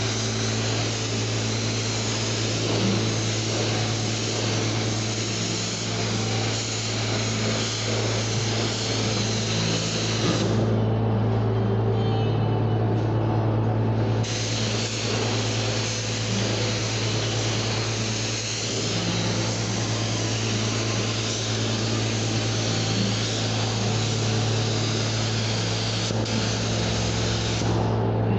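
Air-driven paint spray gun hissing as it sprays a coat onto steel wheels, in two long passes with a pause of a few seconds between them. The hiss stops shortly before the end. A steady low hum runs underneath.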